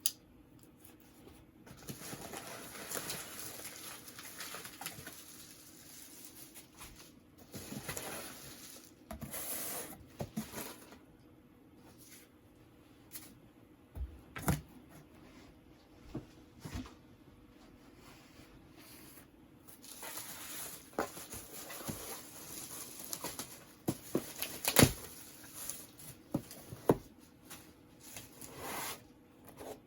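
Intermittent rustling and handling noises with scattered sharp knocks and taps, the loudest knock about 25 seconds in.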